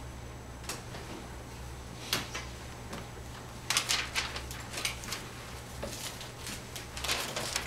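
Scattered clicks and taps from a laptop's keys and touchpad being worked, a few single ones and two short clusters, over a steady low room hum.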